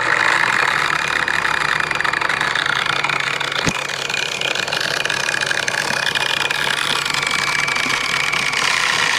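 Electric angle grinder running steadily at low speed on reduced voltage from a Variac, giving a steady motor whine. A single sharp click comes about three and a half seconds in.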